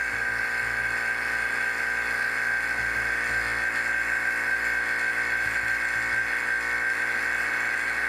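Vacuum pump running steadily, a constant hum with a high whine, as it pumps the chamber down to below half an atmosphere.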